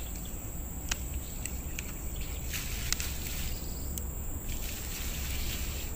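Hands brushing through loose, crumbly peat soil around freshly pulled ginger rhizomes: soft rustling with a few scattered sharp crackles and clicks, over a steady low rumble.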